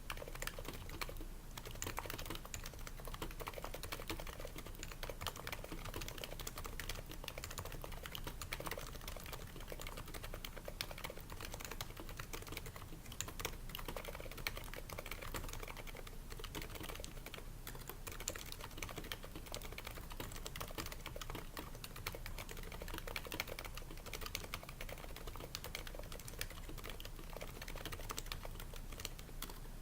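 Continuous typing on a Happy Hacking Keyboard Pro 2 with Topre electrostatic-capacitive switches, a steady stream of keystrokes. The switches are damped with rubber o-rings and lubed slider rails, and the case is lined with shelf liner to soak up sound.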